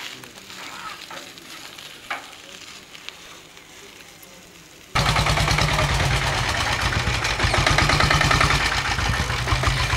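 Quiet outdoor ambience with a few faint clicks, then about halfway through a sudden cut to a loud engine running steadily with a fast, rough pulse: a chhakda, the motorcycle-based three-wheeler of rural Gujarat.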